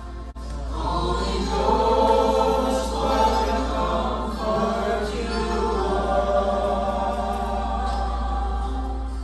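A small group of men singing together in harmony, holding long sung notes.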